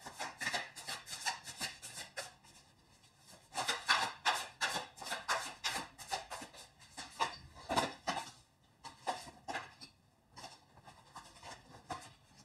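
Deck of tarot cards being shuffled by hand: quick papery riffles and slaps of card on card, coming in spurts with short pauses.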